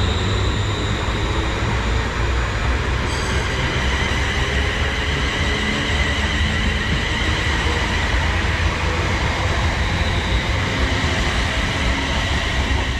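Class 360 Siemens Desiro electric multiple unit, two units coupled, pulling out of the station. There is a steady, loud low rumble of wheels on rail, with a high electric whine from the traction motors over it.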